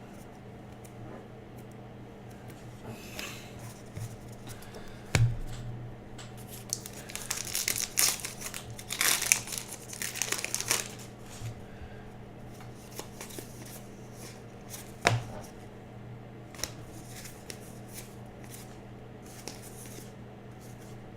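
Trading card pack wrappers crinkling and tearing as packs are opened and cards are handled, loudest in a run of crackling a third of the way in. Two sharp knocks come at about 5 and 15 seconds.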